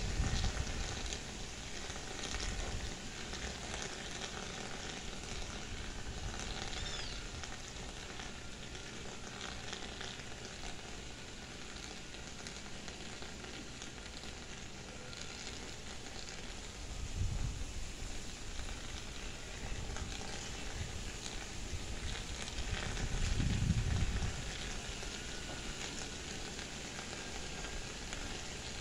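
Wind outdoors: a steady hiss, with low rumbles of gusts buffeting the microphone, strongest twice in the second half.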